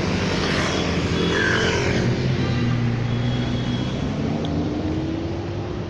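Car traffic going by: a car engine running close by, its pitch rising slowly as it speeds up.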